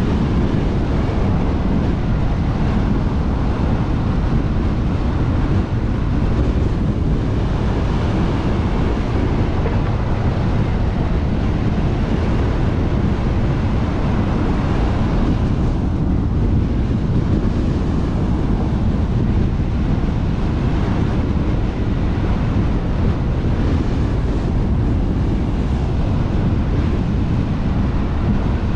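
Steady wind noise on the microphone of a car-mounted action camera, mixed with road and tyre noise from the car driving.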